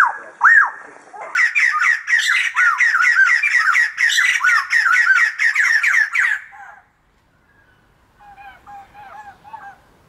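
White-crested laughingthrushes calling: a loud rising-and-falling whoop at the start, then from about a second in a loud, rapid run of jabbering calls, several a second, that cuts off suddenly after about five seconds. A few faint calls follow near the end.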